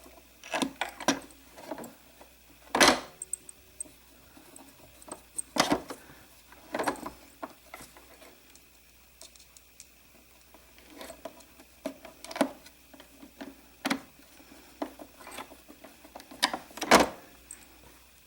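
Irregular clicks and knocks of a Torx screwdriver and screws being handled against a sewing machine's plastic casing as the back-cover screws are set back in, with two louder knocks, one about three seconds in and one near the end.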